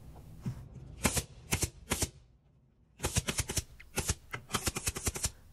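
Pneumatic carpet stapler, run off an air compressor hose, firing staples into stair carpet with sharp snapping shots. A few spaced shots come first, then a short pause, then a rapid run of shots about five or six a second.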